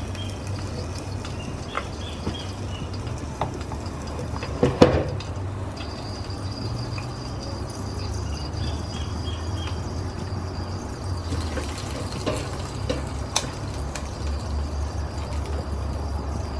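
Hot pork ribs sizzling and crackling in a just-opened air fryer basket, over a low steady hum. A sharp knock about five seconds in is the loudest sound, with a few lighter clicks scattered through.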